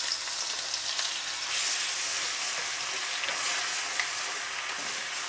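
Ginger-garlic paste sizzling in hot desi ghee in a wok as it fries, stirred with a wooden spatula. A steady hiss that swells for a second or two about a second and a half in.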